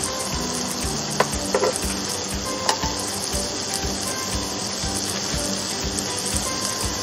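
Mushroom and vegetable slices sizzling steadily on the hot ridged plates of an open contact grill, with a few sharp clicks of tongs against the plates in the first three seconds as pieces are turned.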